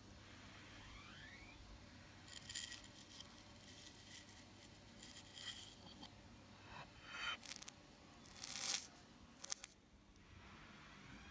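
Metal spoon scraping and scooping dry chocolate puffed-rice cereal in a ceramic bowl, the grains rustling, played backwards. Faint scattered scrapes and rustles, the loudest one near the end swelling up and cutting off abruptly.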